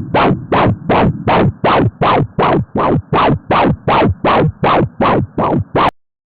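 Pulsed-wave Doppler ultrasound audio from a fetal umbilical artery: a whooshing beat about 2.8 times a second, each beat falling in pitch and dying away, with silence between beats. The silent gap is the absent end-diastolic flow of raised placental resistance. The sound cuts off suddenly near the end.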